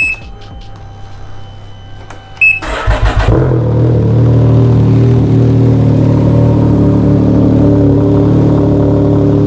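Can-Am Ryker Rally's Rotax 900 ACE three-cylinder engine starting through a newly fitted RLS Carbon Series exhaust. After a short beep, the engine catches about two and a half seconds in with a brief crank, then settles into a steady idle with a deep exhaust note.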